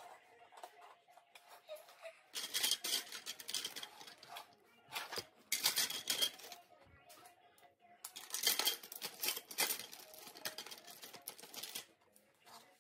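Loose Lego bricks clattering and rattling as a hand rummages through a plastic bin of pieces, in three stretches of dense clicking: a couple of seconds in, briefly around the middle, and for several seconds near the end.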